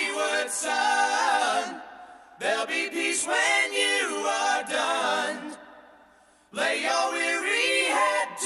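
Soundtrack music: a cappella voices singing in harmony, in three phrases broken by two short pauses.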